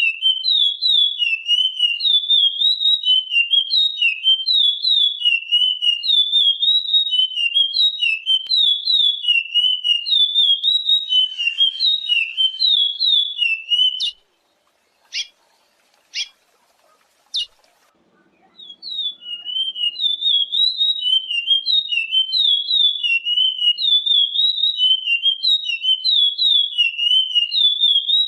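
Chestnut-bellied seed finch (curió) singing its classic song: a fast, continuous run of clear warbling whistled notes. About halfway it breaks off into a pause broken by three short sharp notes about a second apart, then the song starts up again.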